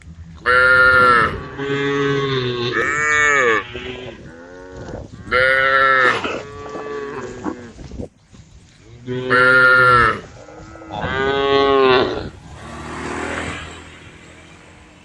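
Cows mooing, about six loud, drawn-out calls, some overlapping from more than one animal, with pitches that rise and fall. A softer, breathy call follows near the end.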